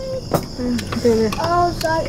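Steady high chirring of insects, with a single sharp clink about a third of a second in and short snatches of voices.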